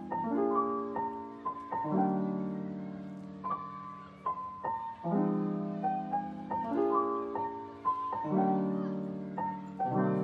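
Soft background piano music: chords struck and left to ring, with a slow melody over them.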